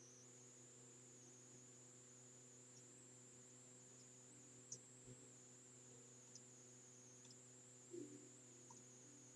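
Near silence: a faint steady electrical hum with a thin high whine above it, and a few faint clicks.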